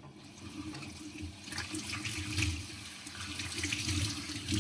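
Water running from a kitchen tap into a sink, an uneven splashing hiss that gets stronger about a second and a half in.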